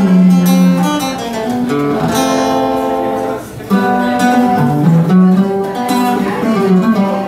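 Instrumental music led by strummed acoustic guitar over a bass line, with no singing. It drops out briefly about halfway through and then starts up again.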